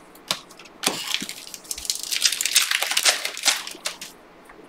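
Trading card packaging crinkling and crackling as it is handled and opened. Two sharp clicks come first, then dense crackling for about three seconds that stops shortly before the end.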